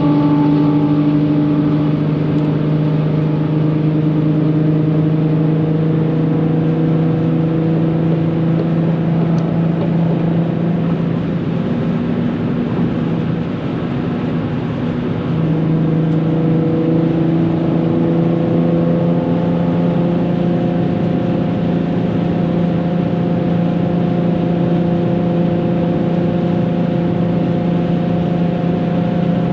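Nissan 370Z's 3.7-litre V6 through a full Tomei titanium exhaust, heard from inside the cabin, running steadily at motorway speed under load. About halfway through the engine note eases off briefly, then picks up and holds steady again.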